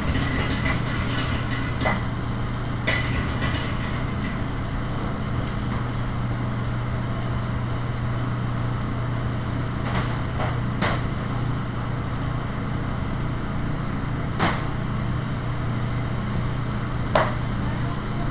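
Steady noise of a commercial kitchen range hood's exhaust fan with a low hum, broken by a few sharp knocks of kitchenware. There are single knocks about two and three seconds in, three close together around ten seconds, and the loudest just before the end.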